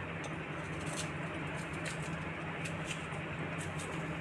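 A few faint, crisp clicks as a kitchen knife slices a green chilli held in the hand over a glass bowl, over a steady low hum.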